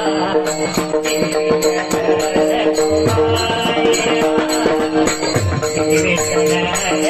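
Marathi devotional kirtan music: a steady held drone under a metallic jingling beat that keeps an even rhythm.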